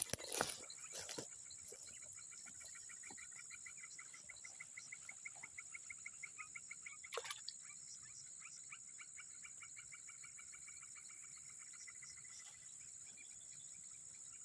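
Swamp wildlife: insects keep up a steady high-pitched drone, while a rapid pulsing animal call repeats from about two seconds in until about eight seconds. A few brief knocks sound in the first second.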